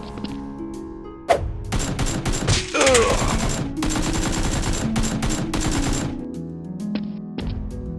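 Rapid automatic gunfire, a dense volley starting about a second in and stopping about two seconds before the end, over background music.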